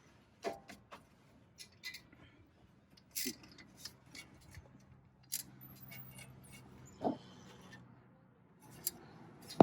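Scattered clicks, knocks and light metallic clinks of hand tools and parts being handled during reassembly of a front brake and wheel hub. A faint steady hum comes in for a few seconds in the middle.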